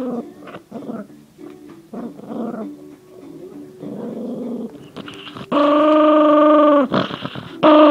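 Toy poodle growling with food in her mouth, a food-guarding warning. Short, broken growls come first; then, about five and a half seconds in, a long, loud, higher growl holds steady for over a second and drops in pitch as it stops, and another starts near the end.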